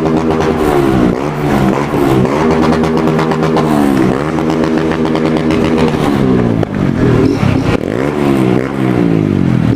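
Motorcycle engine accelerating through several gear changes, its pitch climbing and then dropping back at each shift, then rising and falling in quick revs over the last few seconds.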